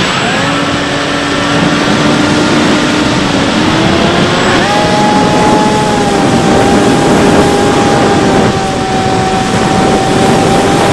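Bixler 3 RC plane's brushless electric motor and pusher propeller whining steadily in flight, heard from an onboard camera with heavy wind rush over the microphone. The whine steps up to a higher pitch a little before halfway and holds there.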